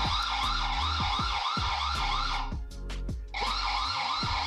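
V380 Wi-Fi CCTV camera's built-in alarm siren, set off from its phone app: a fast warbling tone that rises and falls about four times a second. It drops out briefly about two and a half seconds in, then carries on.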